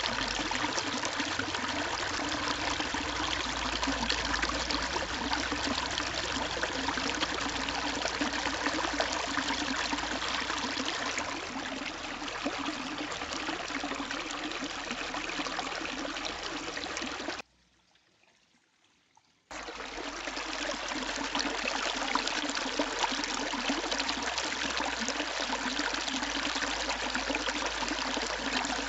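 Water running and trickling over granite paving stones into a shallow stone-paved pool, a steady rush. It cuts out for about two seconds a little past the middle, then comes back.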